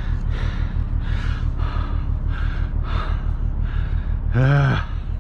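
A person breathing hard and fast close to the microphone, about two breaths a second, with a short voiced grunt about four and a half seconds in. A steady low rumble runs underneath.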